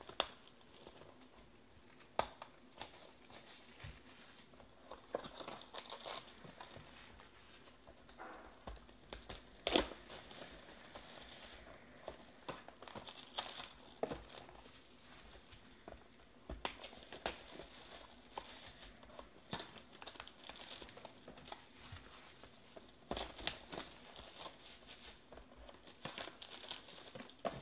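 Plastic shrink-wrap crinkling and tearing as sealed trading-card boxes are unwrapped by hand, with a few sharp clicks and taps now and then as the boxes and foil packs are handled.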